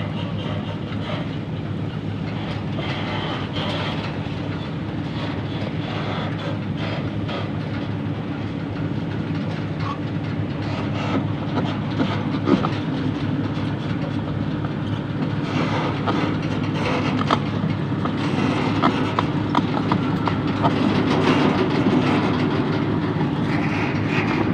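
Crawler heavy equipment travelling: a diesel engine running steadily under the rattle and clank of steel tracks, growing a little louder and busier in the second half.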